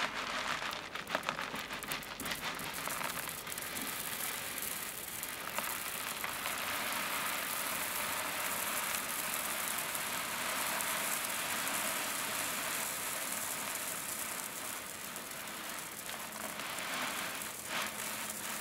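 Loose volcanic cinders poured in a steady stream onto a growing pile on a cloth. It starts as scattered clicks, then becomes a continuous rattling hiss of small rocks landing and tumbling down the pile's sides.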